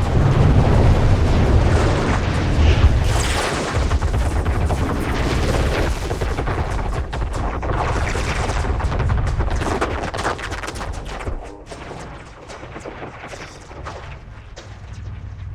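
A long explosion sound effect: a dense, crackling, rumbling blast like a barrage of booms. It is loud at first and dies down to a lower rumble after about eleven seconds.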